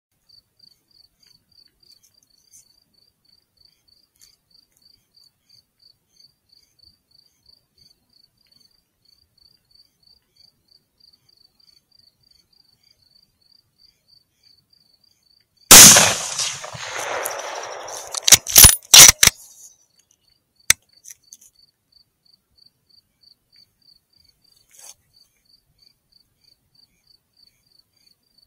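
Crickets chirping steadily, about four chirps a second. About halfway through, a single loud rifle shot with a long fading echo over about two seconds, followed by a quick run of loud sharp clicks and then one more click.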